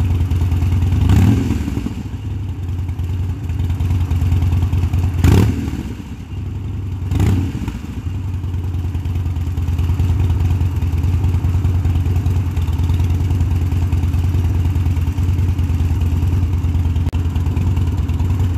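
V-twin cruiser motorcycle engine idling steadily, revved briefly three times in the first eight seconds, then settling back to a steady idle.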